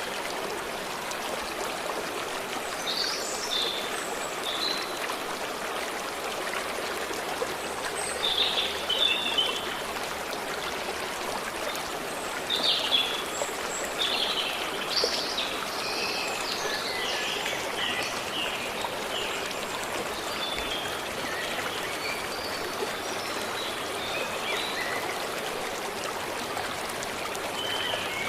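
Stream running steadily over rocks, with small birds calling and chirping at intervals over it.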